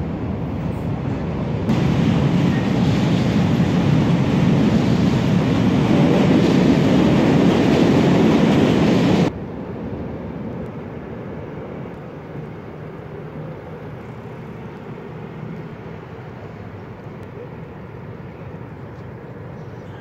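A train runs across a steel truss railway bridge, a loud steady rumble that swells about two seconds in and cuts off suddenly about nine seconds in. It leaves a quieter steady background rumble.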